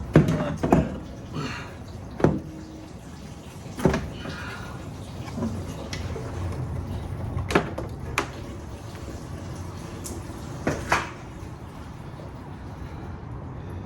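Scattered sharp knocks and clanks of hand tools and metal parts while a car's radiator and coolant hoses are taken out, about seven separate hits over a low steady background.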